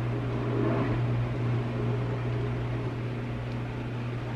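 Steady low hum of a running household machine, with an even background hiss.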